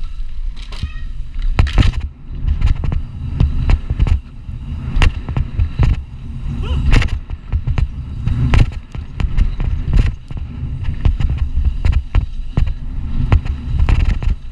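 Mountain bike ridden fast downhill, heard from a camera on the bike or rider: a loud low rumble of tyres and wind on the microphone, broken by frequent sharp clatters and knocks as the bike rattles over bumps and wooden boards.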